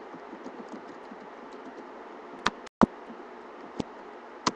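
Steady low background hiss with four sharp clicks in the second half. The loudest click comes just after a brief moment where the sound drops out entirely.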